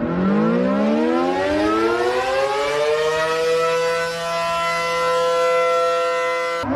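A siren winding up: its pitch rises from low over about three seconds, then holds a steady wail. Near the end it cuts off abruptly and a fresh wind-up starts from low.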